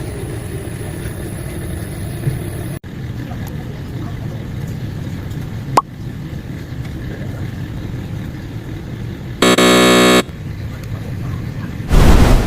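Steady background noise, broken by a short buzzing honk lasting under a second about three-quarters of the way through. A loud burst of noise follows near the end.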